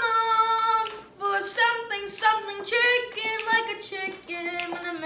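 A young girl singing unaccompanied, holding a long note at first and then a string of shorter notes that step up and down in pitch.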